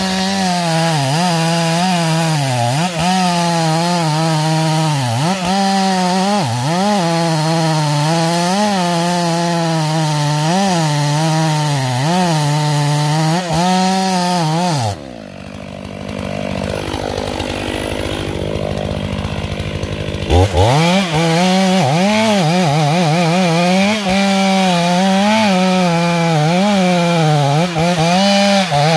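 Stihl MS 500i fuel-injected two-stroke chainsaw cutting into a big tree trunk at full throttle, its engine pitch sagging and recovering as the chain bites. About fifteen seconds in it drops to idle for about five seconds, then revs back up and cuts again.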